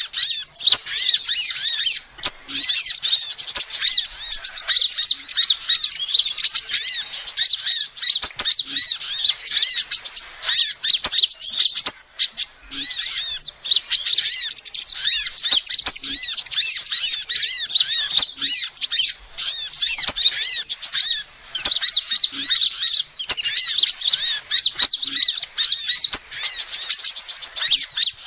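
Female sunbird calling: a nearly unbroken stream of rapid, high-pitched chirps and twittering trills, with only short gaps.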